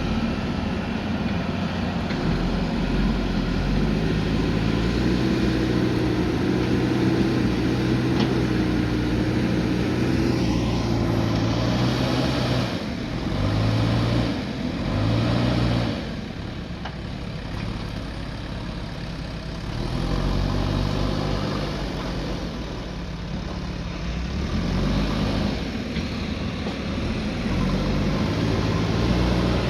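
Diesel engine of a heavy earthmoving machine working, its engine note rising and falling repeatedly as it comes under load and eases off, with a quieter stretch about two-thirds of the way through.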